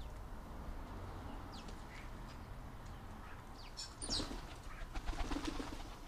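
Eurasian magpie flapping its wings in a short flurry of rapid strokes from about two-thirds of the way in, among a few short high bird chirps.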